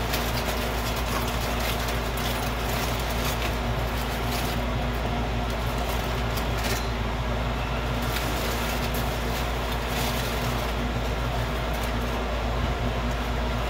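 Steady mechanical drone: a constant low hum with an even rushing noise, unchanging throughout.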